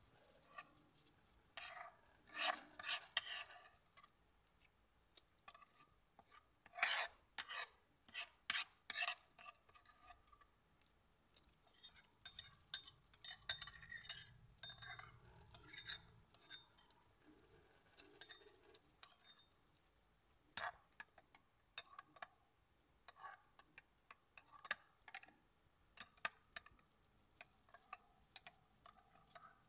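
A spoon scraping and clinking against a ceramic bowl, then stirring in a glass jar of chia pudding. The sound comes in short spells of scraping with scattered sharp taps in between.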